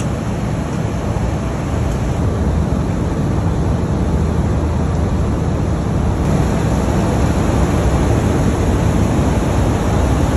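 Salt-refinery machinery running: a steady, deep rumble with a hiss over it, from the plant's motors and conveyor belts.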